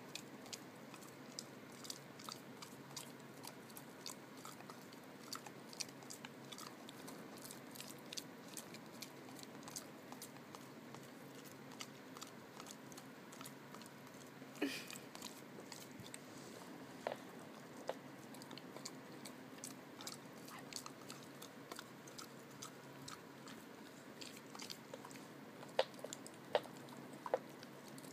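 A Labrador–Rottweiler mix dog chewing gum, its jaws and mouth making irregular short clicks and smacks, with a few louder clicks near the end.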